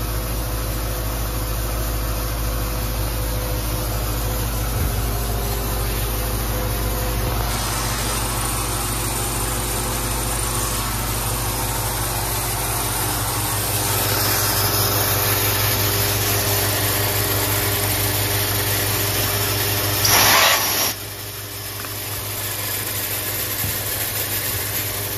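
Milling machine running with a steady low motor hum while an end mill cuts A2 tool steel vise jaws. About 20 seconds in there is a brief loud hissing noise, and then the low hum stops and it goes quieter.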